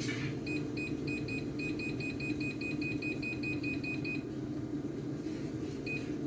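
Air fryer control panel beeping in a quick, even run of about four short high beeps a second for some four seconds as the temperature setting is stepped up, then one more beep near the end. A steady low hum runs underneath.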